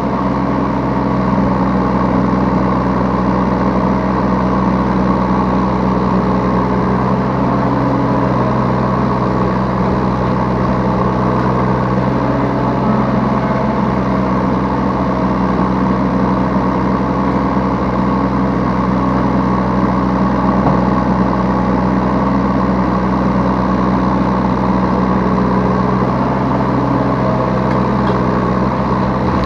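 Yanmar B3 Sigma 3-tonne mini excavator's diesel engine running steadily while it digs and loads, heard from the operator's seat, its note shifting slightly now and then.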